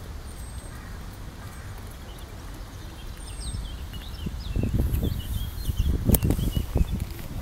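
Small birds chirping and whistling in the background, with low rumbling thumps on the microphone in the second half and a sharp click about six seconds in.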